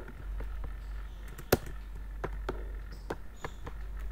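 Computer keyboard keys pressed one at a time: irregular single taps, with one louder keystroke about a second and a half in, over a steady low hum.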